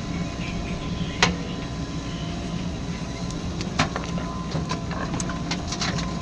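Diesel engine of a JCB 3DX backhoe loader running steadily at a low pitch. Sharp knocks come about a second in and again near four seconds, followed by a cluster of lighter clicks and knocks.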